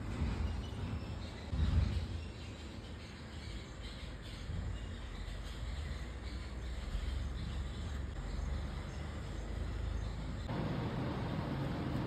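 Outdoor garden ambience: a steady low rumble on the phone microphone with faint bird calls. Near the end the background noise turns broader and brighter.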